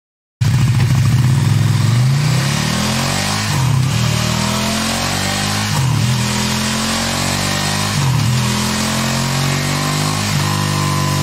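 KTM 1290 Super Duke's 1301 cc V-twin running through its stock exhaust, cutting in suddenly and being revved repeatedly, the revs rising and falling back about every two seconds.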